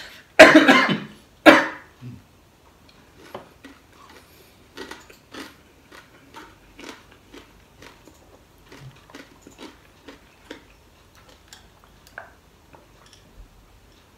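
A man coughs loudly twice in the first two seconds, hand to his mouth. Then comes a run of faint, short chewing and mouth sounds, about two a second.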